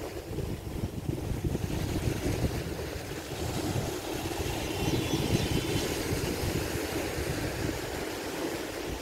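Strong wind buffeting the microphone in gusts, over sea waves washing and breaking against a rock breakwater.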